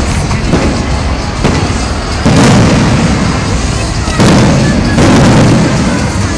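Aerial fireworks shells bursting overhead in a rapid series of booms. The heaviest stretches come a little over two seconds in and again about four seconds in.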